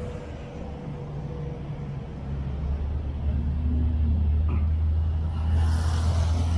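Road traffic passing beside the sidewalk: a low vehicle rumble that grows louder from about two seconds in, with a brief hiss near the end.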